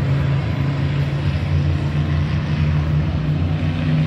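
Main Street stock cars racing around an oval track, their engines running at speed in a steady, loud sound.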